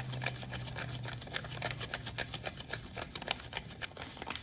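Paper banknotes, Lebanese pound notes, being counted by hand: notes flicked past the fingers one after another in a quick, uneven run of crisp paper flicks.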